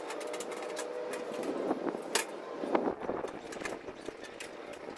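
Metal parts of a flat-packed fire pit grill clinking and knocking as they are handled, with two sharper clanks about two and three seconds in, over a steady low hum.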